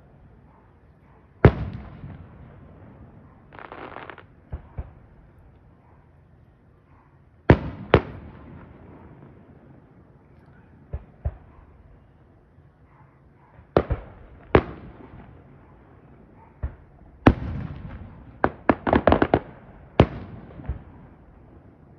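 Aerial firework shells bursting in the sky: widely spaced sharp bangs, each with a short trailing echo, and a quick run of crackling pops near the end.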